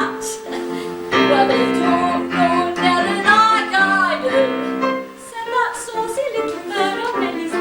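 Singing with piano accompaniment: a music-hall song.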